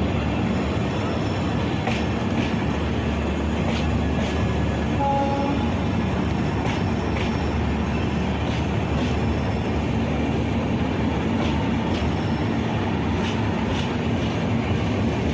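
Passenger express train rolling past slowly: a steady rumble of wheels on rail with scattered clicks as the wheels cross rail joints.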